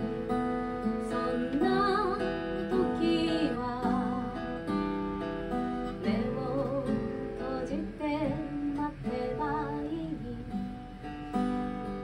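A woman singing, accompanying herself on a strummed acoustic guitar, with vibrato on her held notes.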